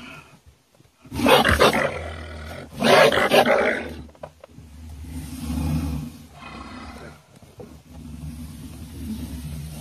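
A wild animal caught in a log box trap growls and snarls: two loud harsh snarls about a second apart, then a lower, steadier growl.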